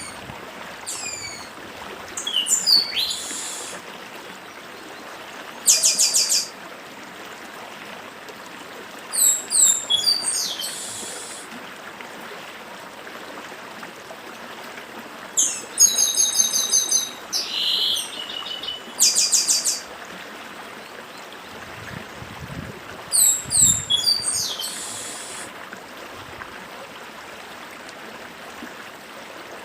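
Chestnut-capped blackbird (papa-arroz) singing: repeated bouts of sharp, falling high notes and buzzy rattling trills every few seconds, over the steady rush of a stream.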